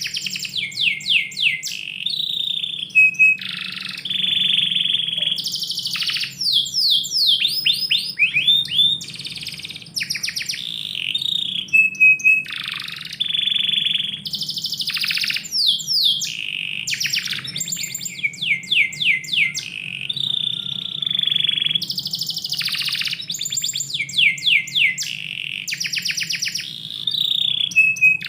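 Domestic canary singing a long, continuous song of rapid trills, runs of quick downward-sweeping notes and short held notes, repeating phrase after phrase.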